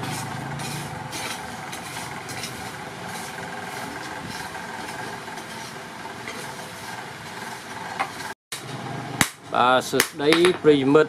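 Steady background drone for about eight seconds, cut off abruptly. After a brief pause come a few sharp hammer blows on red-hot steel at the anvil, with a voice among them.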